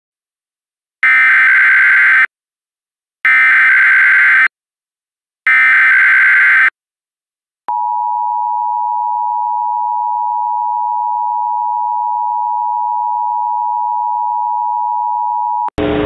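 Emergency Alert System tones: three one-second bursts of SAME header data, then the steady two-tone EAS attention signal (853 and 960 Hz) held for about eight seconds. A voice starts reading the warning right at the end.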